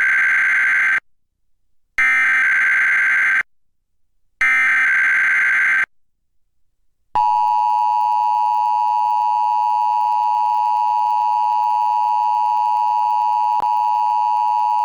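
Emergency Alert System header: three bursts of digital SAME data tones, each about a second and a half long with short gaps between. About seven seconds in, the steady two-tone EAS attention signal starts and holds for about eight seconds. Together they mark the start of an EAS required weekly test.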